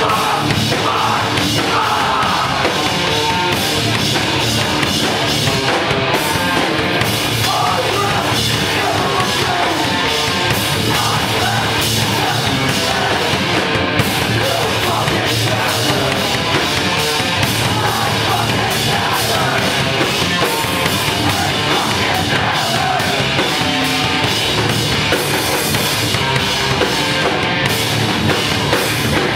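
Live rock band playing loud and steady: electric guitar and drum kit, with some vocals.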